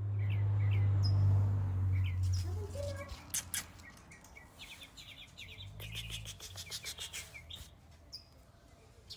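Chow Chow puppies giving short high squeaks and whimpers. A low rumble runs through the first three seconds, and a quick run of clicks and scuffs comes about five to seven seconds in.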